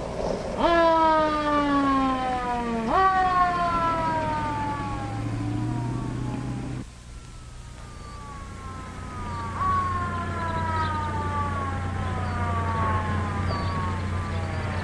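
Police car siren wailing, each cycle jumping quickly up in pitch and then gliding slowly down over two to four seconds, over a low steady hum. About seven seconds in the sound cuts off abruptly and the siren comes back fainter.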